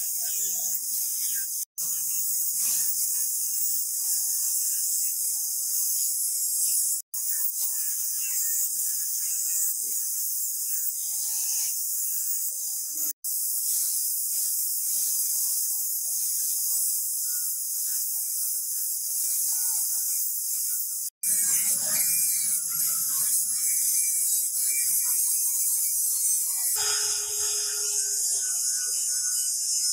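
Angle grinder with a flap disc grinding and polishing a steel sword blade: a steady high hiss, broken off sharply a few times.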